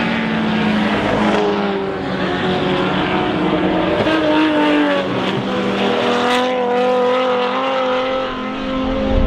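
Several racing car engines running at once at different pitches, their notes shifting and gliding up and down as they rev.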